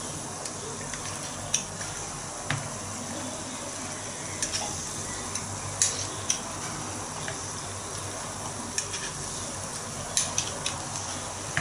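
Hot oil sizzling steadily in a small stainless steel saucepan as spoonfuls of batter drop in to deep-fry, with a dozen or so light clicks of a metal spoon against the pan.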